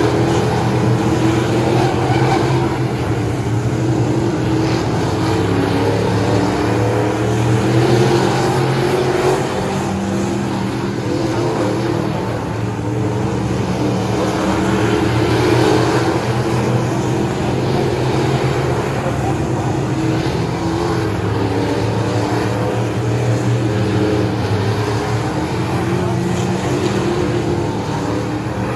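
Racing stock cars' engines running at speed around a short oval track, a steady loud drone that swells and eases every several seconds as the cars pass the grandstand.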